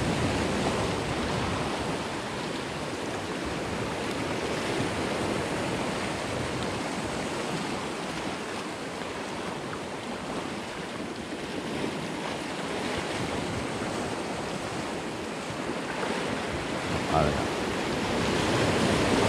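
Rough sea water washing and sloshing steadily, with wind buffeting the microphone.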